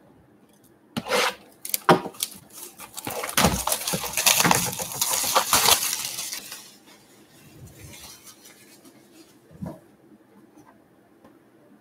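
Plastic wrapping on trading-card packaging being crinkled and torn, a dense run of crackles and rustles that is loudest about two to six seconds in, then quieter handling with a single knock near the end.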